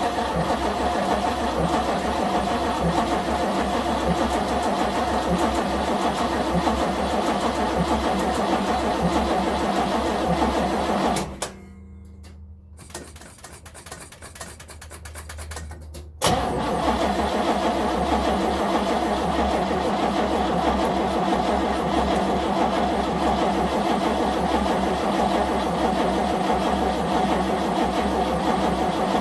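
Starter cranking the Chevy 350 V8 of a 1970 Nova SS without it firing: a long steady crank, a pause of about five seconds, then a second long crank. This is a cold crank after months of sitting with no battery charging, and the engine does not start.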